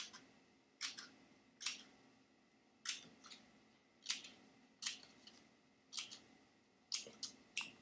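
Small scissors snipping short slits into a sheet of paper: about a dozen quick, separate snips, roughly one a second.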